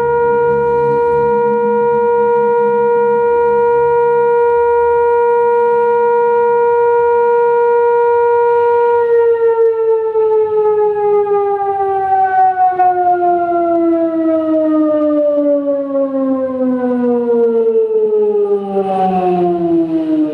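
Mosque siren, AMPL model, sounding: it holds one steady high wail for about nine seconds, then slowly falls in pitch through the rest.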